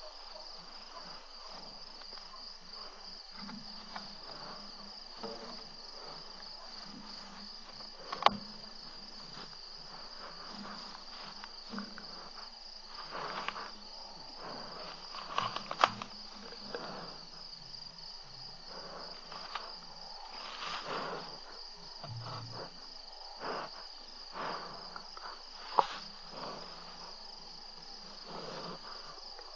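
Crickets chirring steadily in a high, pulsing drone, with scattered rustles and knocks over it. Three sharp clicks stand out, about 8, 16 and 26 seconds in.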